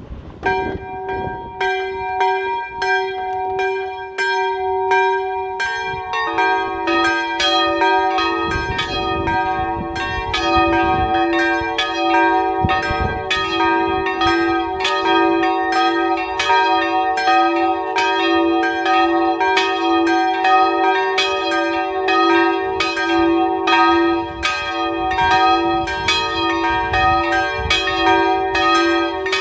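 Small church bells swinging and ringing in an open stone bell gable. One bell strikes alone at first, and the others join about six seconds in, their strokes overlapping in a steady peal.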